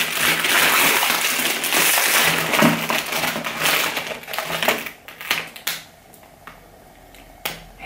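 Packaging crinkling and rustling for about four seconds as a necklace is unwrapped by hand, followed by a few light clicks and a quieter stretch.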